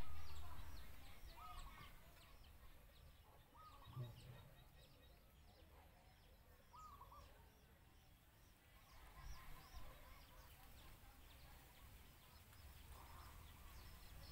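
Faint background birdsong: many short, quick chirps repeating throughout, with a few lower calls now and then. A low rumble fades out over the first couple of seconds, and there is a soft low knock about four seconds in.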